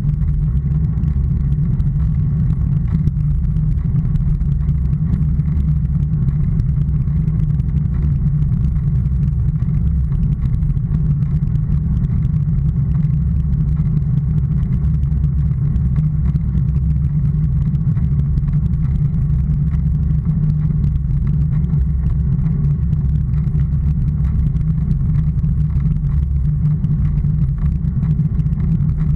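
Steady, muffled low rumble of wind and road noise on a handlebar-mounted action camera during a bicycle ride on rough asphalt.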